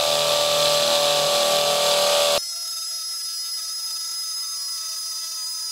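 Makita 40V XGT GPH01 brushless hammer drill in hammer mode, boring into a concrete block: steady hammering noise with a motor whine. About two and a half seconds in, the sound cuts abruptly to a quieter, thinner high whine with no low hammering.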